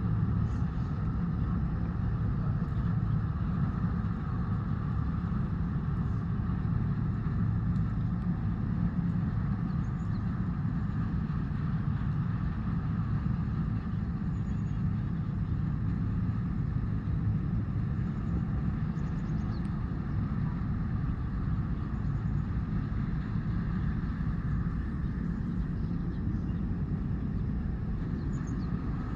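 Steady low engine rumble, unchanging, with no whistle sounding.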